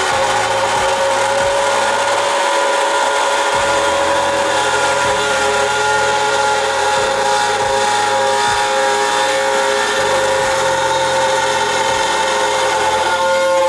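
TwoTrees TTC450 Pro CNC spindle driving a quarter-inch bit through hardwood on an adaptive-clearing pass, cutting noise with several steady tones held over it. The owner puts the tone down to the bit chattering because its flute sticks out too far from the spindle.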